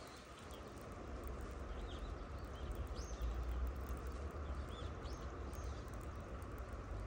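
Outdoor ambience: a low, uneven rumble of wind on the microphone, with a few short bird chirps around the middle.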